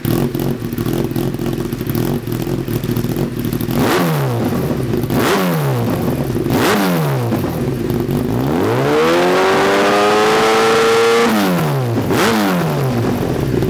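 2013 Kawasaki ZX1000's inline-four engine through a Lextek YP4 stubby aftermarket silencer, idling steadily and then revved: three quick throttle blips, a longer rev held high for about two seconds, a drop, and two more short blips.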